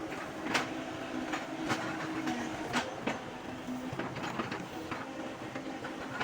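Excavator working: its engine and hydraulics run with a steady hum that shifts in pitch, and repeated sharp knocks come about one or two a second.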